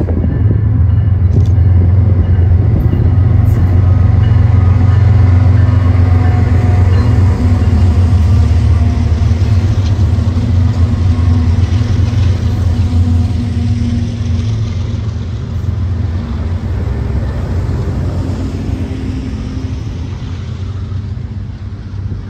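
Diesel locomotive engines of a passing train, a deep steady rumble that is loudest a few seconds in and then slowly fades away.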